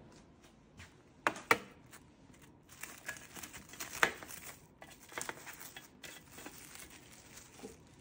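Plastic cling wrap crinkling as it is peeled back off a stainless steel tray, with a few sharp taps as the metal tray is handled.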